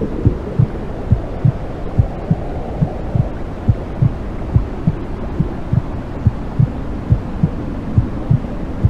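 Womb sounds for soothing a baby: a heartbeat's low double thumps, about seventy pairs a minute, over a steady low whooshing noise like amniotic fluid.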